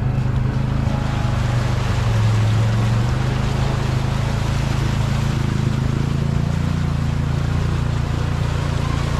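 ATV engine running steadily as the machine fords a fast river, its wheels churning through the current and throwing up splashing water.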